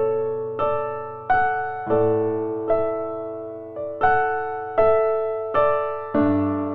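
Slow, gentle piano music: single notes and chords struck about once every 0.7 seconds, each ringing out and fading before the next.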